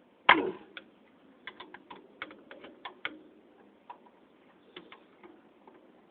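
Channel-lock pliers clanking and clicking against a ceiling fan's metal parts while a set nut is worked loose: one loud clank just after the start, then a string of light, irregular clicks.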